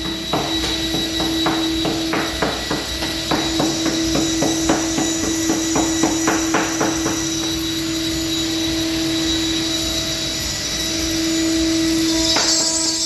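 CNC router engraving: the spindle runs with a steady whine while the cutting bit makes rapid, irregular clicks and taps for about the first seven seconds. After that the cutting settles into a smoother, steadier run.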